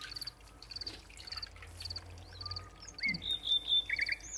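A cricket chirping steadily, short high pulsed chirps nearly two a second, with a brief louder bird call near the end; liquid trickles faintly into a bowl.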